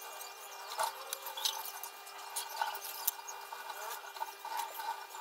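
Light scratching and tapping of hands, a steel ruler and a pen on a sheet of cardboard, with many small scattered clicks over a faint steady hum.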